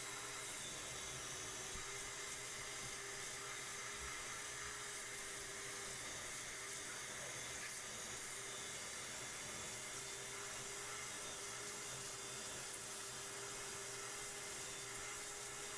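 Mini shop vac running with a steady whine and hiss, its hose sucking dust out of a bathroom exhaust fan's metal housing.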